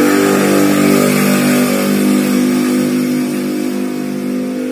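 An engine running steadily as a low drone, fading gradually over the second half.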